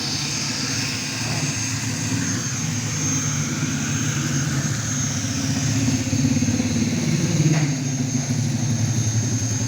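An engine running steadily with a low hum and a thin, steady high whine above it.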